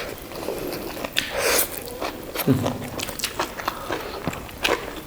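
Close-up chewing and biting while eating boiled buffalo innards: many short wet mouth clicks and crunches at an uneven pace.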